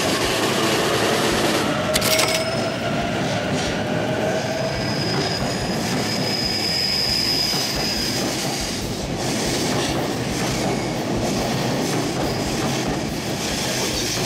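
Electric commuter train running along the platform, wheels clattering over the rail joints, with a sharp clack about two seconds in and a thin, high wheel squeal from about four to eight seconds in.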